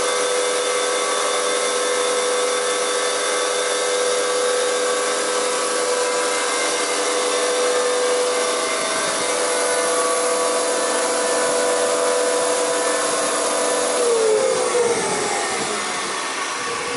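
WEINIG four-sided planer-moulder running with no wood being fed, its spindle motors and cutter heads giving a steady multi-toned whine. Near the end the whine falls in pitch and fades as the spindles wind down.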